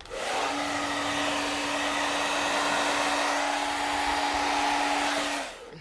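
A small electric appliance motor running steadily with a loud airy rush over a steady hum. It switches on at once and cuts off shortly before the end.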